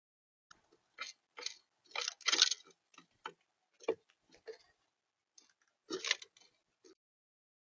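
Irregular sharp clicks and taps on the bird feeder, typical of a visitor pecking at seed, coming in uneven clusters with the loudest bunches about two seconds in and again near six seconds, then stopping.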